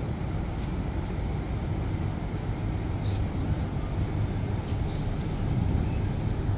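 Steady low rumble of outdoor harbour-and-city background noise, with two short high bird chirps, one about three seconds in and one near five seconds.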